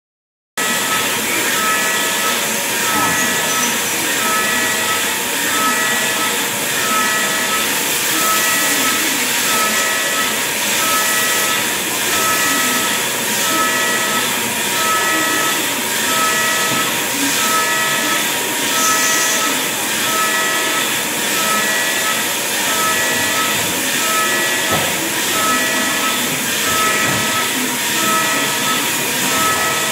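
CNC milling machine trochoidal-milling high-strength tool steel (1.2083) with an end mill at about 9,550 rpm. A steady loud hiss with high cutting tones that come and go in an even rhythm as the cutter loops in and out of the cut; it cuts in abruptly at the start.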